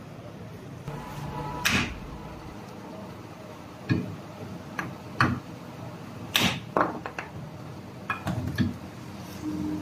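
Sharp metallic knocks and clanks, about eight at uneven intervals, from hand tools striking and handling metal parts during CV joint work on a car.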